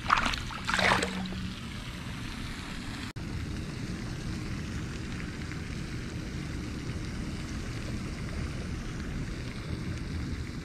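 A released largemouth bass splashes twice at the surface as it swims off, then a steady rush of wind buffeting the microphone.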